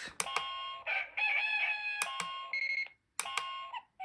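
Reizen talking alarm clock's small speaker playing its built-in alarm sounds, including a synthesized rooster crow and electronic tone phrases, with sharp clicks between them and a brief break about three seconds in.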